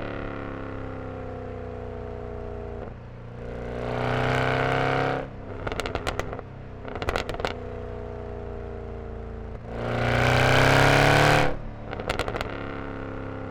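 Mercedes-Benz E63 AMG's M156 V8 with the exhaust resonators deleted, under way: the engine note sinks slowly while cruising, then twice the throttle is opened for a loud burst of rising revs of a second or two. Each burst stops suddenly as the throttle closes, followed by a run of sharp crackles and pops.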